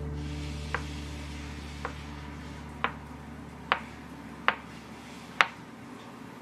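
Kitchen knife slicing a soft roll of homemade egg tofu, its blade knocking on the bamboo cutting board six times, about once a second.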